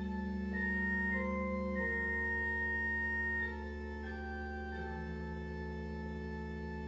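Church pipe organ playing slow, sustained chords. The held notes change every second or so, and the sound grows a little softer about halfway through.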